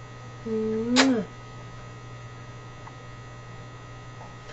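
A kissing sound: a short hummed 'mm' lasting about half a second, ending in a sharp lip-smack about a second in. A steady electrical hum runs underneath.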